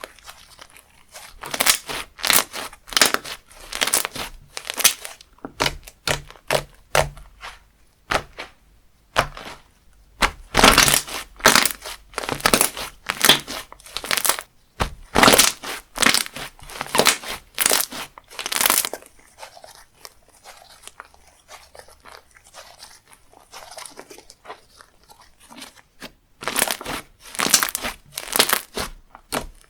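Slime being squeezed, folded and stretched by hand, giving dense crunchy crackling and popping in bursts, with a softer, quieter stretch about two-thirds of the way in.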